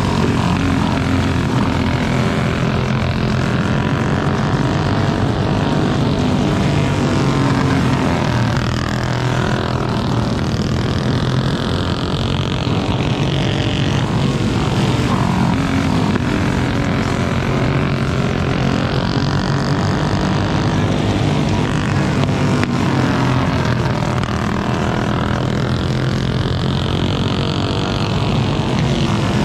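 Single-cylinder flathead racing kart engine running hard on a dirt oval, heard onboard. Its pitch rises and falls every several seconds as the kart accelerates down the straights and lifts for the turns.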